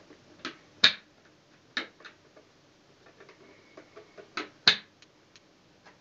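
Sharp plastic clicks and knocks from the Bosch BGC05AAA1 vacuum's bagless dust container and its catches being handled: a loud click about a second in, two lighter ones near two seconds, and a loud pair about four and a half seconds in.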